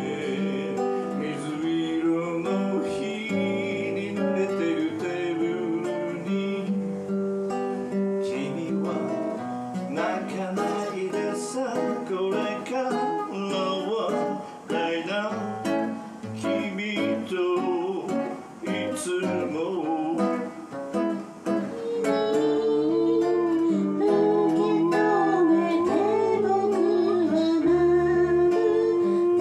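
A man singing to his own nylon-string acoustic guitar, with an electric bass playing along. The music gets louder about three-quarters of the way through.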